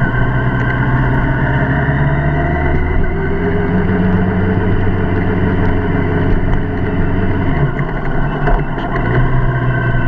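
Engine of the vehicle being driven, running steadily under way, its note changing about three seconds in and again near the end.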